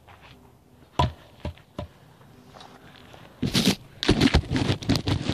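Wooden logs knocking as they are set down: one sharp knock about a second in and two lighter ones after it, then a couple of seconds of loud scraping and crackling of bark as a log is shifted into place on top of another log by gloved hands.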